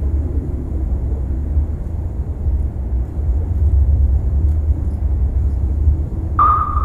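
A steady, loud low rumble. Near the end a steady high tone comes in suddenly and holds.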